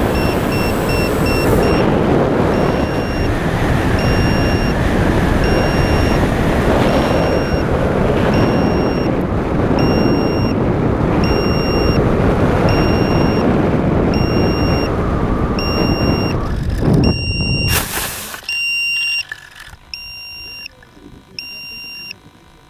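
Air rushing over the onboard camera of a foam RC plane in low flight, with a short high electronic beep repeating about once a second. About 18 s in the plane comes down on the grass with a brief loud scrape, and the rushing stops, leaving only the beeping and a few soft bumps.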